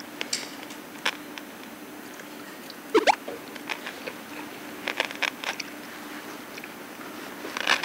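Soft, careful crunching bites of pickled yellow radish (danmuji): a few short crunches scattered through, kept quiet. About three seconds in, a quick rising whistle-like sound is the loudest thing.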